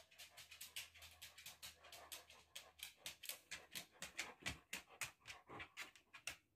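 Cat chewing something crunchy: a quick, even run of faint crisp crunches, about six a second, that stops abruptly near the end.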